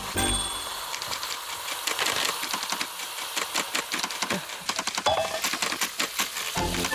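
Teal frying in hot fat in a covered pan pressed under a weight, the fat crackling and spitting in a dense run of rapid pops.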